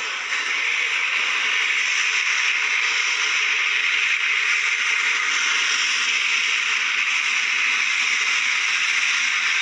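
Steam locomotive approaching with a steady hiss of escaping steam, no distinct exhaust beats.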